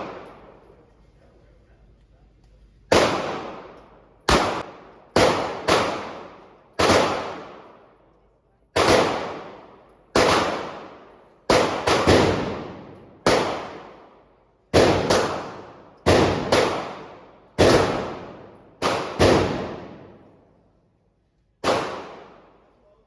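Gunshots at a shooting range: about eighteen single shots fired at an uneven pace, sometimes two close together. Each crack rings out in a reverberant tail that fades within about a second.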